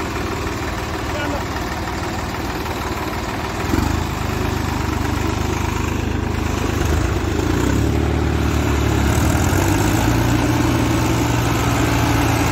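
Tractor diesel engines running, speeding up and getting louder about four seconds in and again around eight seconds.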